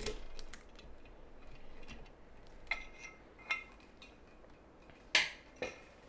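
Small metallic clicks and clinks of a pin-tumbler lock cylinder being handled: the key turned to lock it back up and the cylinder worked out of the vise. A couple of the clinks ring briefly, and there is a sharper click about five seconds in.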